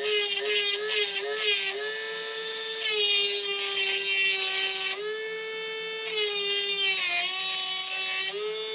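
Homemade DC-motor mini grinder with an abrasive disc whining steadily while a screwdriver tip is pressed against the disc: a loud grinding hiss in a few short touches in the first two seconds, then two longer spells, with the motor's pitch dropping slightly under the load each time.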